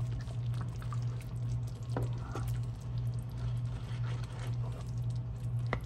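Spatula stirring thick gravy around meatballs in a nonstick skillet: wet squishing with a few light scrapes. A steady low hum runs underneath.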